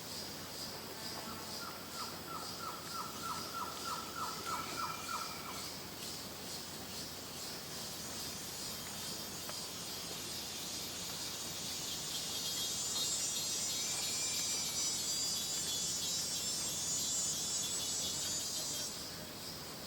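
Tropical rainforest ambience: a steady, pulsing chorus of insects, with a run of about a dozen quick repeated call notes in the first few seconds and a short whistled note twice. Past the middle a louder, higher insect drone swells in and cuts off suddenly near the end.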